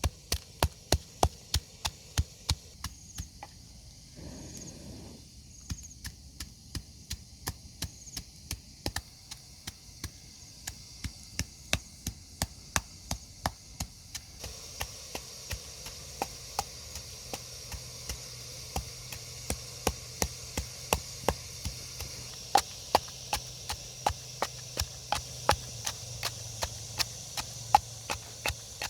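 Knife chopping on a wooden cutting board: a steady run of sharp strokes, about two to three a second, with a short pause about four seconds in.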